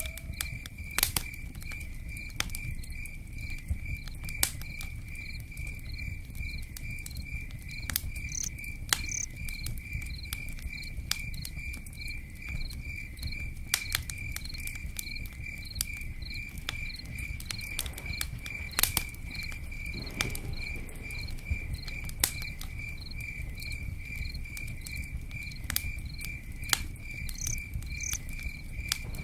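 Crickets chirping in a steady, even pulse throughout, over a campfire with scattered sharp crackles and pops and a low steady rush.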